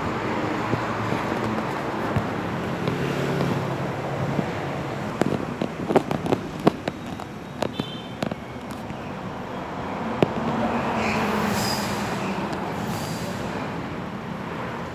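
Road traffic: a motor vehicle engine hums, and the sound swells as a vehicle passes about ten seconds in. A handful of sharp knocks come in the middle.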